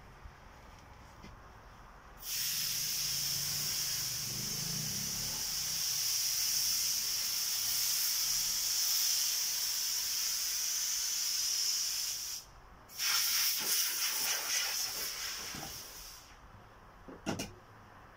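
A loud, steady hiss, starting about two seconds in and lasting about ten seconds. It breaks off for half a second, then comes back wavering for a few more seconds before stopping. A single sharp knock follows near the end.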